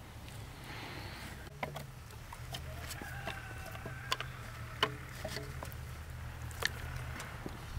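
Light handling sounds at a cooking table: a few scattered sharp clicks and taps over a steady low rumble, with a faint thin whistle-like tone partway through.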